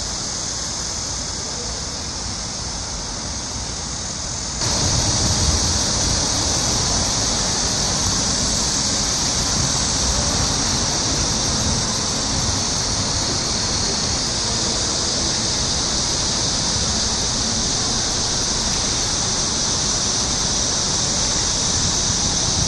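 Steady outdoor ambience: an even, high-pitched insect chorus over a low, noisy rumble, the whole becoming louder about four and a half seconds in.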